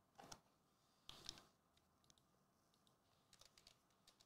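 Faint clicking and tapping of a computer keyboard being typed on: a few separate clicks in the first half, then a quick run of keystrokes about three and a half seconds in.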